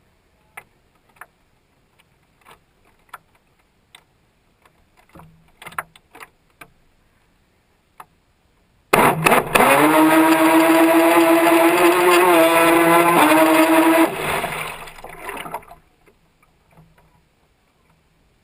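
RC boat's motor running hard at a steady pitch for about five seconds over the rush of water, starting suddenly about halfway through and then fading out. Faint scattered ticks come before it.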